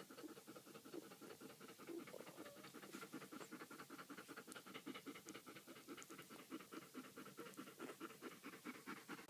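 Faint, rapid, steady panting of a German Shepherd bitch in labour, breathing hard through her contractions.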